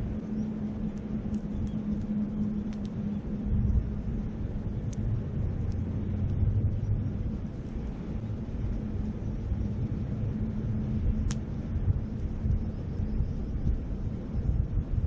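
Wind rumbling on the microphone over a wood campfire, with a few sharp crackles and pops from the burning wood; the loudest pop comes about eleven seconds in.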